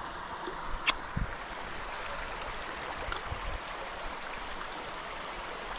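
Shallow stream running over a pebble bed: a steady rush of flowing water. A few faint clicks and low knocks come about a second in and again around three seconds.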